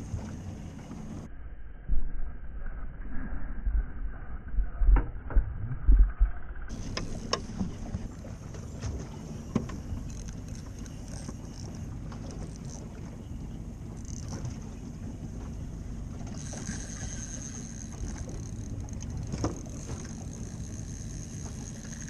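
Water lapping and splashing against a kayak hull, with scattered small knocks. In the first few seconds wind buffets the microphone in loud low rumbles.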